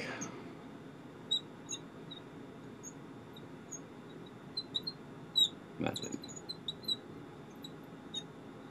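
Marker squeaking on a glass lightboard as letters are written: a scatter of short, high squeaks, irregular and bunching together in places.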